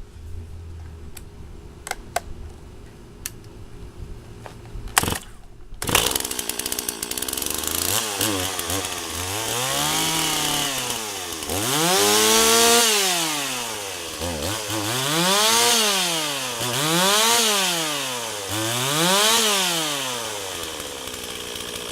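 Stihl 026 Pro two-stroke chainsaw being started: a few clicks and knocks, then the engine catches about six seconds in. It idles, is revved up and back down about five times, and settles to idle near the end.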